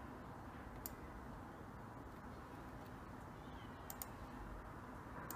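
Four sharp clicks from a laptop being operated, two of them close together near the middle, over a faint steady hiss.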